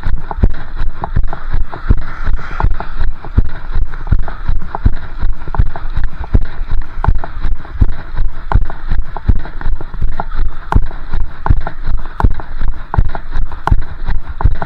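A runner's footfalls on wet, slushy pavement, picked up through a chest-strapped camera: an even rhythm of thumping strides, about three a second, over a steady hiss.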